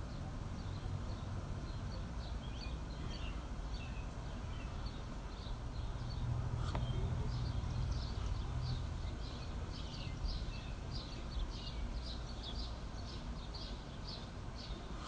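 Small birds chirping over and over above a steady low rumble. The chirps come thicker in the second half, and there is one sharp click about halfway.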